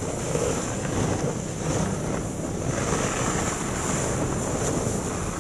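Snowmobile engine running steadily while towing a sled over the snow, with the sled hissing along and wind buffeting the microphone.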